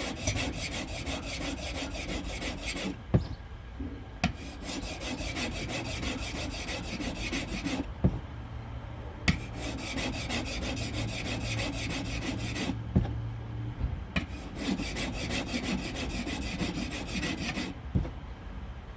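A steel lathe tool rubbed back and forth by hand on a water-wetted medium-grit diamond sharpening plate, in runs of steady scraping strokes. About every four to five seconds the stroking stops briefly, with a sharp click as the blade is lifted and set back down between sets.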